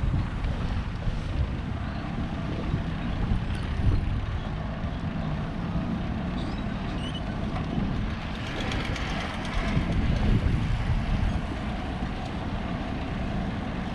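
Wind buffeting the action camera's microphone with a steady low rumble, mixed with road traffic; a louder hiss swells briefly about two-thirds of the way through, like a vehicle going by.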